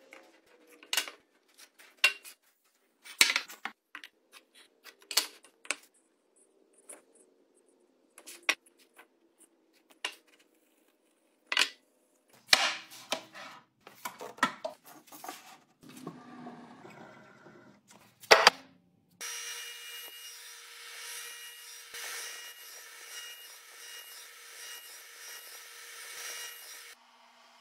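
Scattered sharp taps and knocks of wood and hand tools being handled on a workbench. About two-thirds of the way in, a radial arm saw cuts in running with a steady whine, then cuts off shortly before the end.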